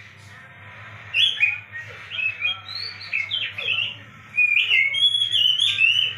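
Oriental magpie-robin (kacer) song: bursts of rapid, varied whistled notes and chirps, with short pauses between phrases, over a steady low hum.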